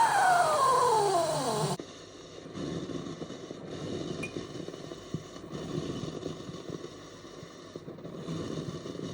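Espresso machine steam wand hissing, with a tone that falls steadily in pitch, then shut off abruptly about two seconds in. A softer, irregular low rumbling follows.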